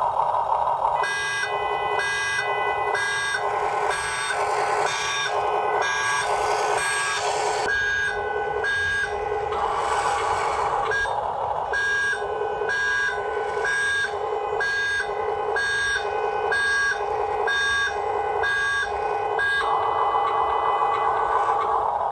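Electronic reversing-warning beeps from a Huina RC construction truck's sound module, repeating about twice a second over a steady whine of small electric motors and gears. The beeping stops a few seconds before the end.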